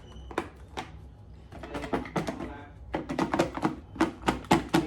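Sauce-coated chicken wings being shaken in a bowl: a few scattered knocks, then from about three seconds in a fast, even run of thuds and knocks, about four a second.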